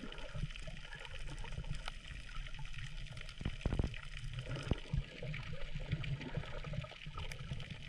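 Water gurgling and sloshing close to the microphone, as heard on a snorkeller's camera, with scattered faint clicks. There is a louder gush a little before the middle and another shorter one soon after.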